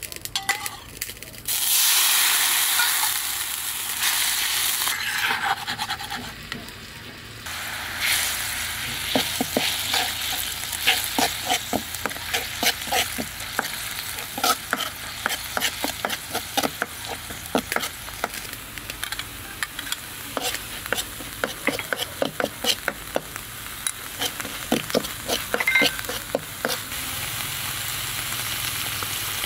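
Red curry paste sizzling in hot oil in a steel wok, with the sizzle starting suddenly about two seconds in. Through most of the middle, a metal ladle scrapes and clinks against the wok in quick repeated strokes as the paste is stirred.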